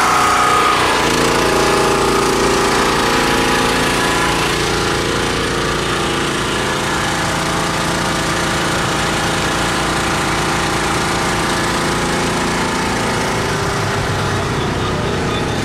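A food truck's generator engine running steadily at a constant pitch.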